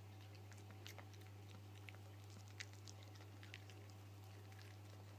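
Toy poodle puppy eating raspberries from a hand: faint, irregular chewing and smacking clicks over a steady low hum.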